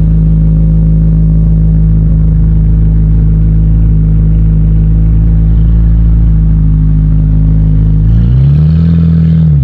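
Chevrolet Corvette C8 Z06's flat-plane-crank 5.5-litre V8 idling loudly through an aftermarket Fabspeed exhaust, with one short rev rising and falling back about eight seconds in.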